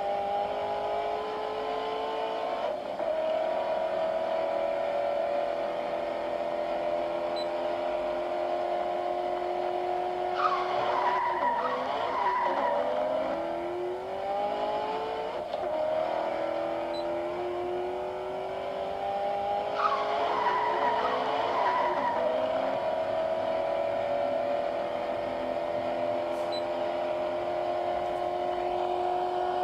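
Race-car engine sound, a steady drone whose pitch glides up and down as if shifting gears, broken twice by a stretch of tyre squeal.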